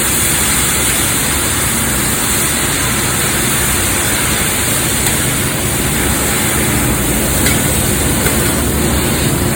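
Steady rushing hiss of a large gas cooking burner under a big pot of greens, running evenly.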